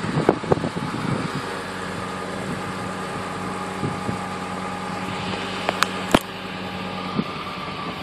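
Ford F-150 pickup's engine idling steadily, with a few knocks in the first second and a couple of sharp clicks about six seconds in.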